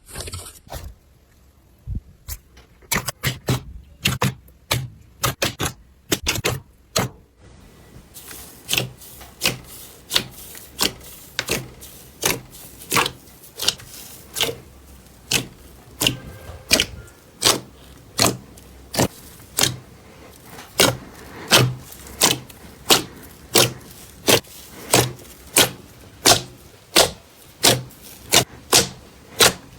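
Slime being pressed and squeezed by hand, giving sharp clicking pops: a few scattered ones at first, then a steady run of about two a second.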